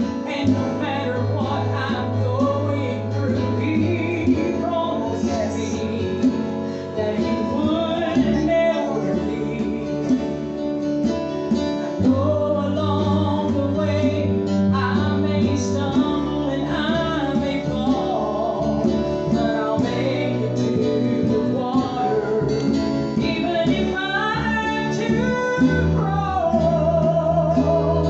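A gospel group performing a song: voices, led by a woman's, singing over strummed, amplified guitars with steady held low notes underneath.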